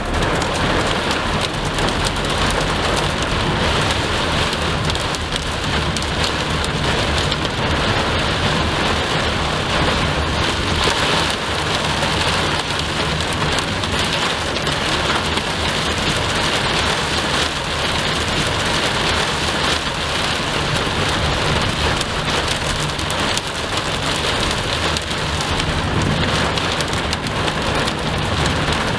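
Heavy rain falling steadily during a thunderstorm, with a low rumble of thunder underneath.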